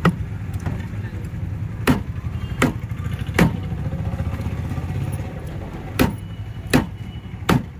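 A large fish-cutting knife chopping catla fish pieces on a wooden log block: about seven sharp chops in uneven groups. Under them runs a steady low rumble of motor traffic.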